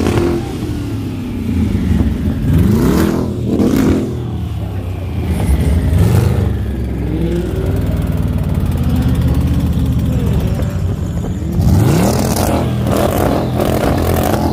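A car engine revved hard about four times, the pitch sweeping up sharply and dropping back each time, with the engine running steadily between revs.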